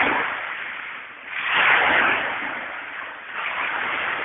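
Small waves breaking and washing up a pebble beach, surging near the start and again about one and a half seconds in, then easing off.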